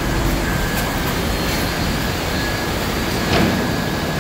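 R68A subway train pulling to a stop at the platform: a steady rumble and hum from the cars, with a brief louder noisy surge about three seconds in.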